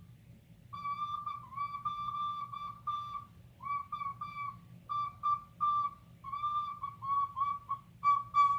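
Recorder played in a string of short, tongued notes, almost all on the same high pitch, a few starting with a slight scoop up into the note.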